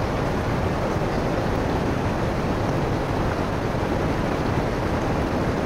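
Steady rush of the Suru river's whitewater running over rocks close by.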